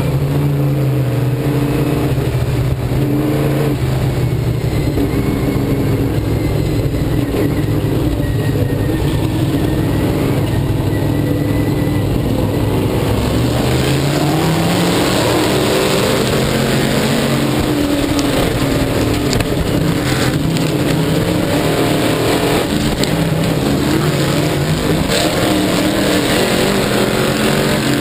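Onboard sound of a dirt-track sportsman modified's V8 engine at racing speed, its pitch falling and rising with the throttle. About halfway through it climbs in pitch under hard acceleration, with a louder rush of noise over it.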